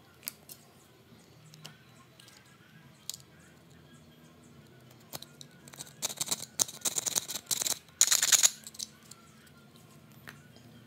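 Cutter-knife blade scraping and shaving the edge of a hard plastic power-window switch housing: a few light handling clicks, then quick repeated scraping strokes for about two seconds and a louder stroke a little after.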